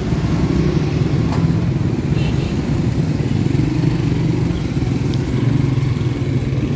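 Busy street traffic, with motorcycle and auto-rickshaw engines running close by in a steady low drone.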